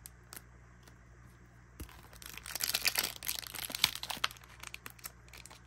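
Foil Pokémon booster-pack wrapper crinkling and tearing as it is worked open by hand. It starts about two seconds in, is densest for a couple of seconds, then trails off into a few light crackles.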